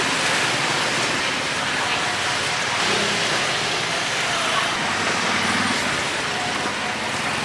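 Street ambience of steady passing road traffic and vehicles running, with faint voices of people nearby.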